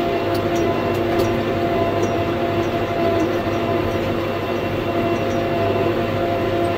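Case IH tractor's diesel engine running steadily under way, with a few light clicks and rattles over it.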